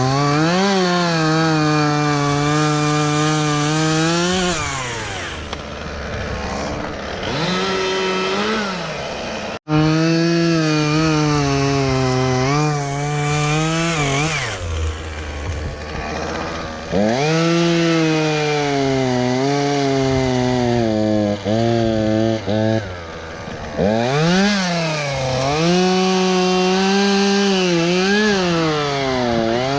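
Chainsaw running at high revs, cutting wood, then throttling back to idle and revving up again several times. The sound drops out for an instant about ten seconds in.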